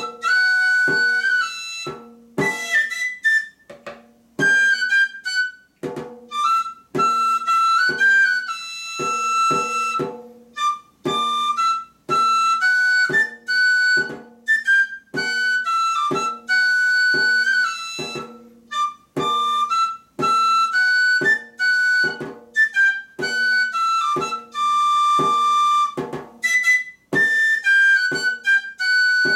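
Pipe and tabor played together by one player: a three-hole tabor pipe in D carries the melody in whistle-like notes, some of them held, while a wooden beater strikes the rope-tensioned tabor drum in regular time beneath it.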